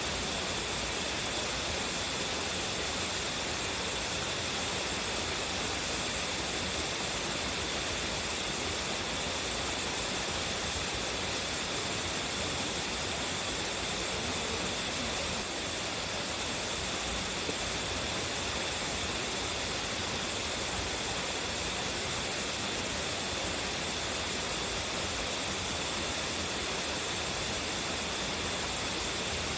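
Strong-flowing waterfall (Tsuzumigadaki) pouring in a steady, unbroken rush of water.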